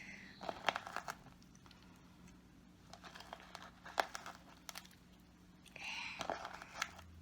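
Slime being kneaded and shaped by hand, giving off scattered small sticky clicks and crackles.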